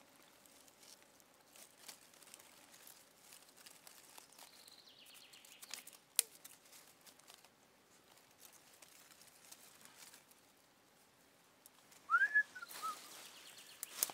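Dry twigs and tinder rustling and snapping faintly as they are pushed into a fire lay by hand, with one sharp crack about six seconds in. Near the end a short whistle rises and falls, the loudest sound here.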